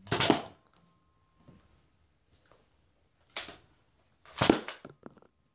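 Toy foam-dart blasters (Nerf) firing: sharp pops, one right at the start, another about three and a half seconds in, and a quick cluster of two or three around four and a half seconds in.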